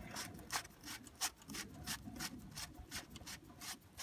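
Mercedes W211 oil filter housing cap being screwed on by hand: a run of short scraping rubs, several a second, as the hand turns the cap on its threads.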